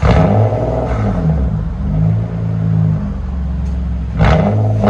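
Straight-piped Nissan Altima 3.5 L V6 exhaust, with its resonator and rear mufflers deleted, being revved in a few throttle blips. The sharpest blip comes near the end.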